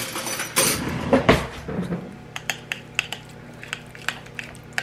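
Utensils clattering as a kitchen drawer is rummaged, then a spoon stirring yogurt in a glass bowl, clinking against the glass about three times a second.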